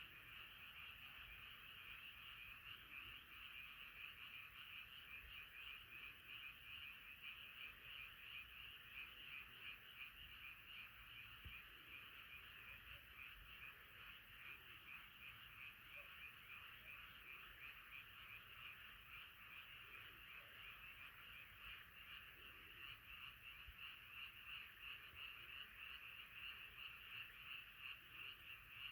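A chorus of many frogs calling together, faint and continuous, their overlapping calls merging into a fast, unbroken pulsing trill.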